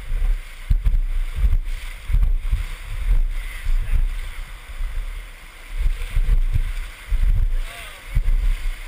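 Whitewater rushing around a river raft, with repeated low buffeting thumps on the microphone.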